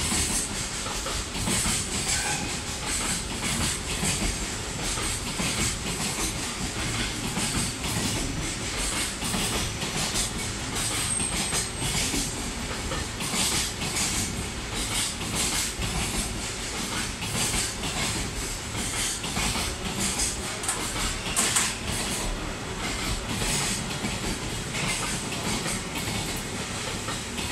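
Loaded JR Freight Koki container wagons rolling past at speed: a continuous clickety-clack of wheels over rail joints with steady rumble and hiss.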